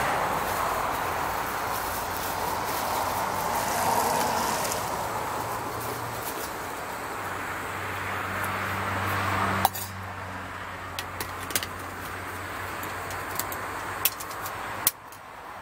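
Gas canister stove burner hissing steadily under a pot, then shut off abruptly with a click about two-thirds of the way through. A few light metallic clinks follow.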